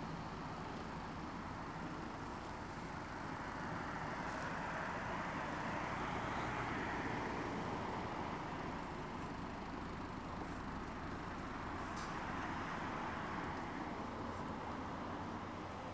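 A car passing on the road, its tyre and engine noise swelling to a peak about six or seven seconds in and then fading.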